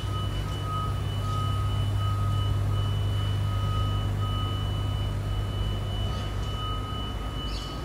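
BYD electric garbage truck reversing: its reversing alarm beeps in a steady repeating pattern over a continuous low hum from the truck.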